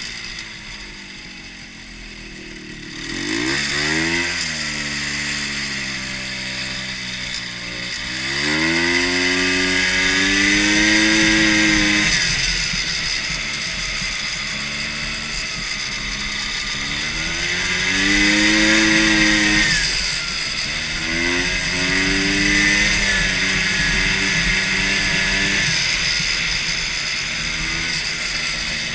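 Ski-Doo Rotax 250cc engine on a custom racing lawn mower, revving up and dropping back several times, its pitch climbing and falling with each rise.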